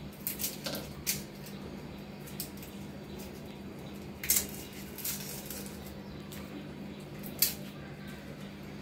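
Dry papery crackles of onion skin being peeled off a small onion by hand. There is a cluster of them in the first second, then single sharper crackles near the middle and once more near the end, over a steady low hum.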